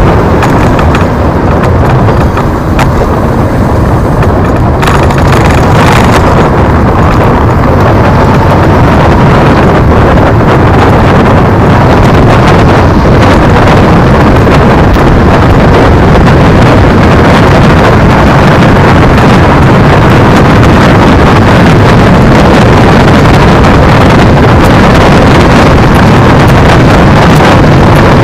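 Loud, steady wind buffeting the microphone over the tyre and road rumble of a Gtech Z9 electric scooter riding along a paved road.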